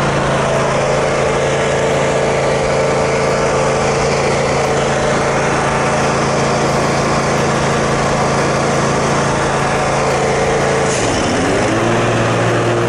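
John Deere Z-Trak zero-turn riding mower's engine running steadily while it is driven along the pavement. About eleven seconds in, the engine note dips and settles at a different pitch.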